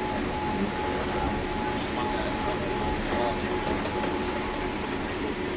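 Cabin noise of a Boeing 787 Dreamliner rolling on the ground just after landing: a steady rumble from the wheels and engines, with a faint steady whine over it.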